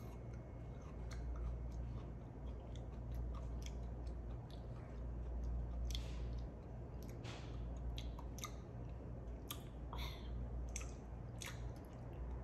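A person chewing a small piece of raw garlic, with scattered wet mouth clicks and smacks over a steady low hum.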